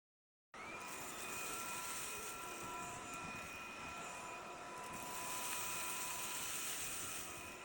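Cordless stick vacuum running steadily: a motor whine over a rushing hiss of airflow, which cuts in abruptly about half a second in.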